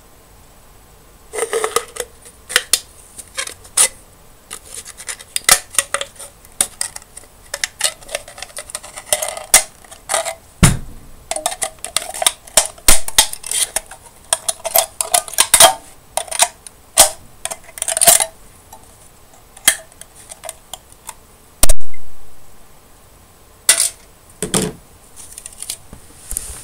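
Irregular metallic clicks and scrapes of a snap-off utility knife's blade working against an aluminium drink can, with one much louder sharp crack a few seconds before the end.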